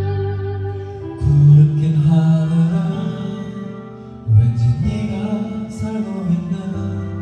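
Music: a slow guitar-backed piece with held notes, new chords struck about a second in and again around four seconds in.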